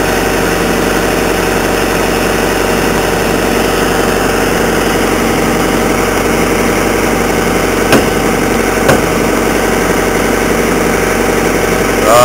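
Vermeer SC60TX stump grinder's engine idling steadily, with two short clicks about eight and nine seconds in.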